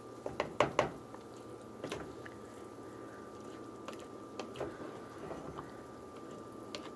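A spoon stirring thick potato soup in a saucepan, clicking and knocking against the pan. Several sharp clicks come close together in the first second, with a few single ones later.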